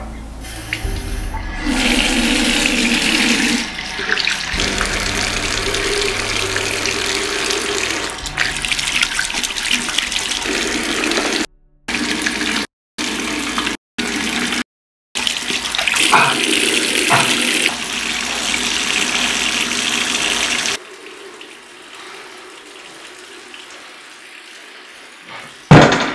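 Bathroom tap turned on and water running into a sink while soapy hands are rubbed under it; the rush of water breaks off sharply several times in the middle and stops about three quarters of the way through. Near the end comes one sharp, loud bang.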